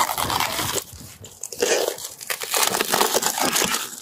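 Shattered sunroof glass of a 2023 Range Rover crunching and crackling as it is pulled and torn away by hand, with a short lull about a second in.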